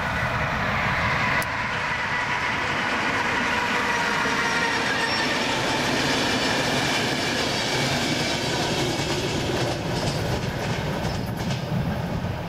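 Electric-locomotive-hauled passenger train passing close by: a steady rumble of the coaches' wheels on the rails with rail-joint clatter, easing off as the last coaches go by, with a few sharp clicks near the end.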